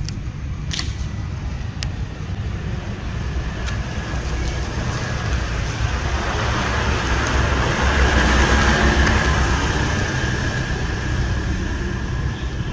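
Road traffic noise: a motor vehicle passes along the street, its engine and tyre noise swelling to a peak about eight seconds in and then fading, over a steady low rumble. A few sharp clicks come in the first four seconds.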